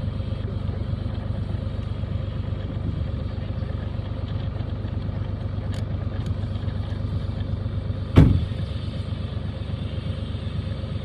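Toyota Land Cruiser 80 Series engine running as the truck drives through a river crossing, a steady rumble, with one loud thump about eight seconds in.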